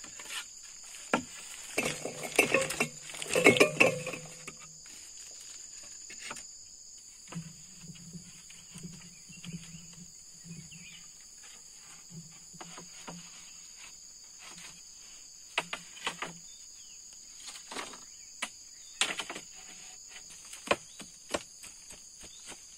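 Knocks and clatter of bamboo poles and split bamboo halves being handled and laid on a frame, busiest about two to four seconds in, over a steady shrill chorus of insects.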